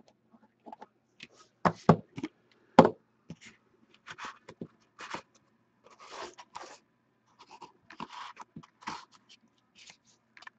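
Hockey card box and pack being opened and handled by hand: a few sharp knocks around two to three seconds in, then repeated short rustling and scraping of cardboard and wrapper.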